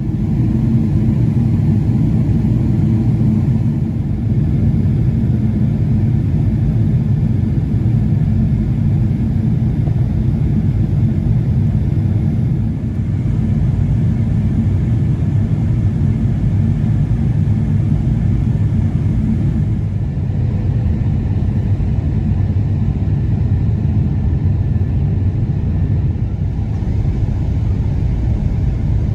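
Steady low rumble of engines and airflow heard inside the cabin of a Boeing 777-200ER airliner in flight.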